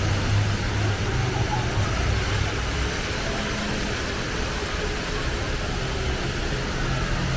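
The HSBC Rain Vortex indoor waterfall pouring steadily: a constant rush of falling water, with a murmur of crowd voices beneath it.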